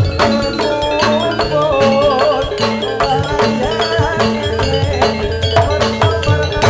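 Amplified gamelan music for a jathilan dance: struck metallophones and drums keep a steady, driving beat, with a wavering melody line above.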